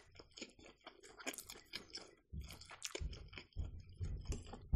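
A person chewing a mouthful of food with the mouth close to the microphone: a run of wet smacking clicks.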